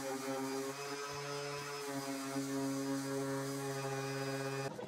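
Random orbital sander with a 120-grit disc running on wood, giving a steady humming drone that stops near the end.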